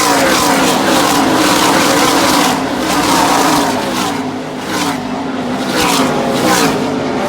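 ATV engine being revved repeatedly, its pitch rising and falling several times.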